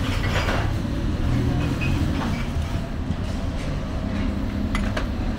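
Steady low rumbling background noise, with a few faint clicks near the end.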